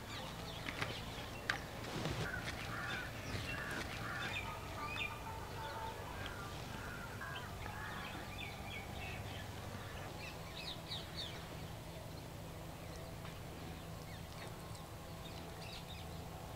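Birds calling in the background: short scattered chirps and calls over a steady low hum, with a few soft taps in the first two seconds.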